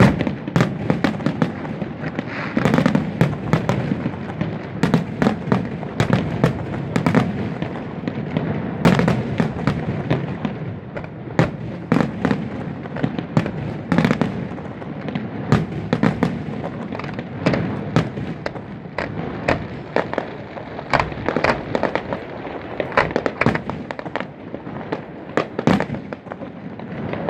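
Aerial firework shells bursting in a dense, irregular run of sharp bangs that keeps going throughout.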